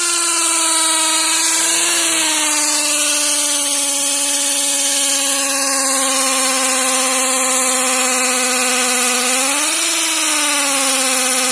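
Cordless power drill running continuously while boring into rock. Its motor whine sags slowly in pitch under load and picks up briefly about two seconds in and again near the end.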